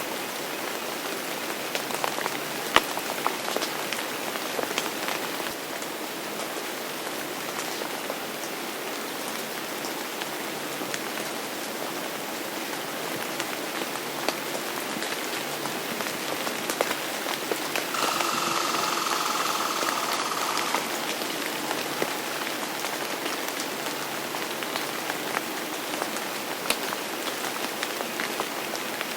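Steady rain falling, with many separate drops ticking sharply on nearby surfaces. About two-thirds of the way through, a steady high tone with overtones sounds over the rain for about three seconds, then stops abruptly.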